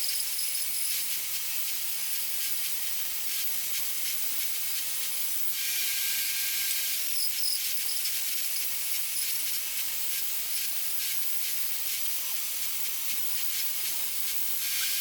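Power saw ripping Sapele into 12 mm strips: a steady hissing cut noise with brief dips about five and seven seconds in.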